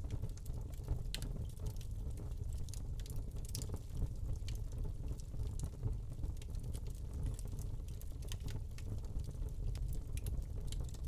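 Wood fire burning in a fireplace, crackling with irregular sharp pops and snaps over a low steady rumble.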